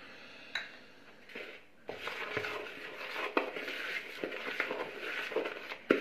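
Canary egg food (pâtée) being stirred and mixed in a container: a steady scraping and rattling with many small clicks, starting about two seconds in after a few light clicks.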